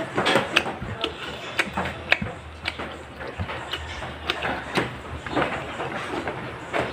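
Close-up chewing and lip-smacking of grilled pork eaten by hand, a string of irregular sharp wet clicks.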